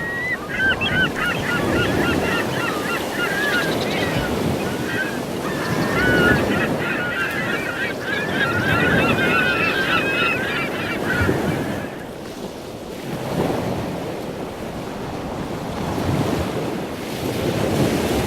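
Waves washing in with a flock of birds calling over them; the birds fall quiet about eleven seconds in, leaving the surf swelling and easing on its own.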